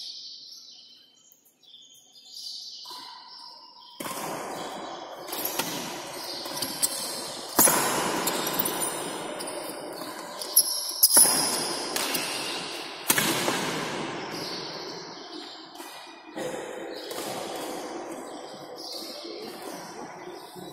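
Badminton rally: racket strikes on the shuttlecock, sharp hits every second or so that echo in a large hall, starting about four seconds in, with a few louder smash-like hits among them.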